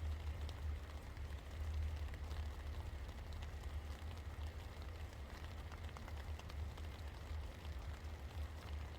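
Steady rain falling, with many small drops ticking irregularly, over a low steady rumble.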